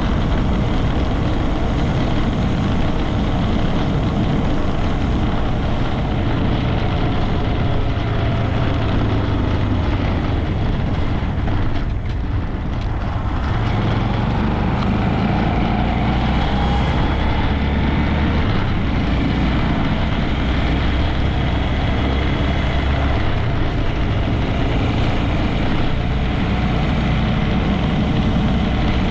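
Honda Grom 125's single-cylinder engine running while the bike is ridden, with wind and road noise; the sound drops briefly about twelve seconds in.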